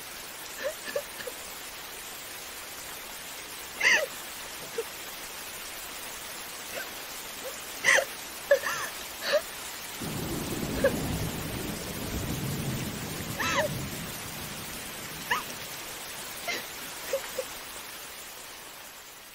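Steady rain falling, with a low rumble swelling for about four seconds from about ten seconds in. Short high-pitched sounds are scattered through it.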